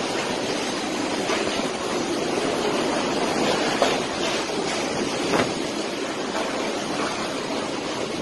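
Strong wind of a sand and dust storm blowing in a steady rush.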